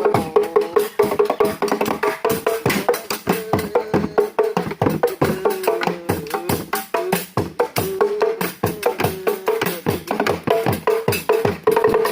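Instrumental music: a fast, steady run of percussion strikes under a melody line, with no singing.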